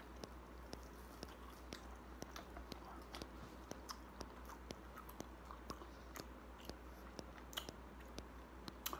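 A man chewing and biting mouthfuls of meat: a long run of small wet smacks and clicks, faint overall, over a steady low hum.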